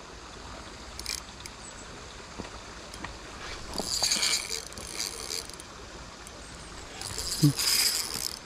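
Spinning reel's drag buzzing in two short runs, about a second each, as a hooked chinook salmon takes line. A steady river rush runs underneath.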